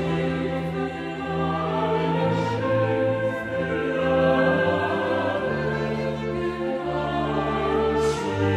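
Three-part mixed choir singing a chorale setting in sustained chords, accompanied by a small orchestra of strings, winds and basso continuo, with the bass line moving stepwise beneath.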